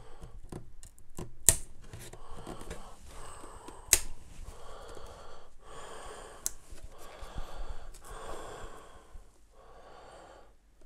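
A Sky Q Mini's plastic case being handled and turned over on a desk: several sharp clicks and taps, the loudest about a second and a half, four seconds and six and a half seconds in, between stretches of soft rubbing and handling noise.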